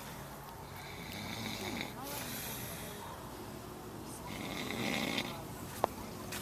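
A man snoring in his sleep: two long snores a few seconds apart, the second one louder.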